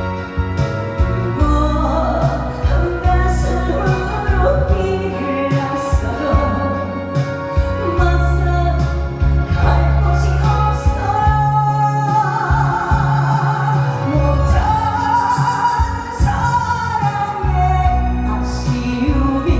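A singer performing a song live over music with a steady bass beat.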